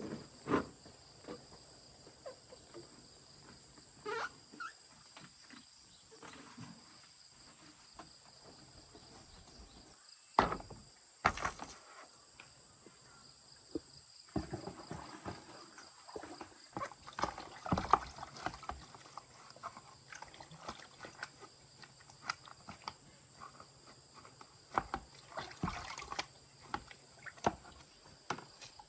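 Scattered clicks and knocks of tools and parts being handled during hands-on appliance repair work. They come irregularly, busier in the second half, over two faint, steady high-pitched tones.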